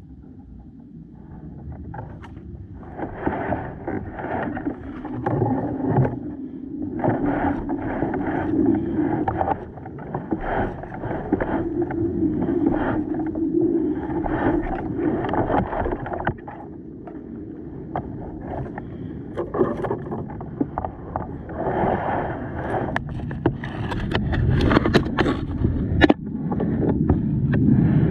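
Kayak being paddled: the paddle blades dip and splash in a steady run of strokes, with water washing against the hull. Sharper knocks and scraping come in near the end.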